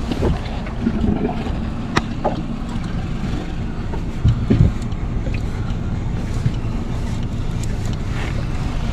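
115-horsepower outboard motor running steadily, a low even hum, with a few sharp clicks on top.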